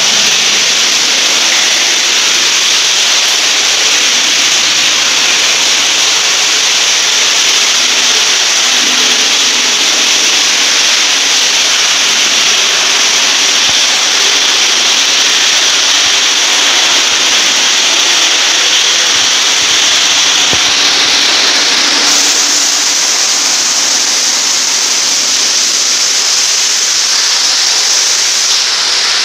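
Water rushing steadily from a 1½-inch float valve inlet into a concrete water tank, a loud hiss that brightens a little about three-quarters of the way through: the valve is open and the tank is filling.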